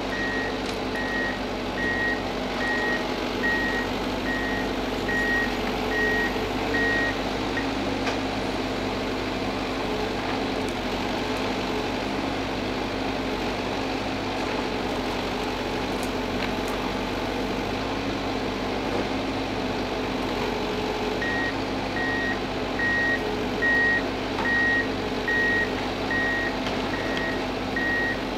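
Ponsse Elk forwarder's diesel engine running steadily as the loaded machine drives. Its reversing alarm beeps at an even pace for the first seven seconds or so, stops, then starts again about three-quarters of the way through.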